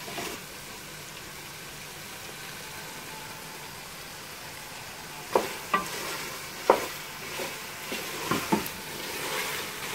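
Boneless lamb curry sizzling as it fries in a pot, stirred with a wooden spoon, at the stage where the oil has separated from the masala. In the second half the spoon knocks sharply against the pot several times.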